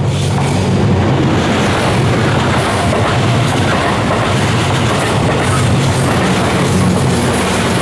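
JR West Series 87 diesel train passing close by, a loud, steady rumble of its engines and wheels on the rails.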